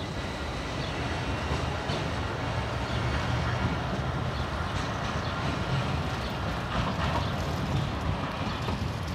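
Class A32 Bombardier Flexity Swift articulated tram pulling away from the stop and running off along the track: a steady rumble of wheels on rails and traction motors.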